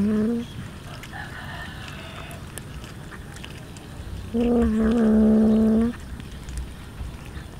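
A cat growling low and steady over its raw fish: one growl ends just after the start and a longer one comes about four seconds in. This is typical food-guarding with another cat close by.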